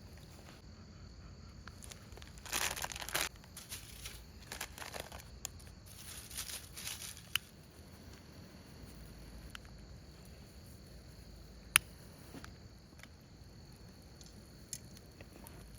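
Two bursts of crinkling and rustling, as of something being handled, plus a few sharp single clicks, over a faint steady high chirring of insects.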